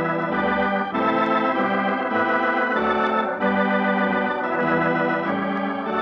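Organ music bridge: sustained organ chords, changing every second or two, beginning to fade near the end, marking the curtain rising on the first act of a radio play.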